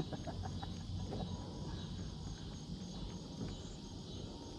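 Insects in the riverbank trees chirping in a steady rhythm, about three short high pulses a second over a constant high hiss, with a single sharp click right at the start.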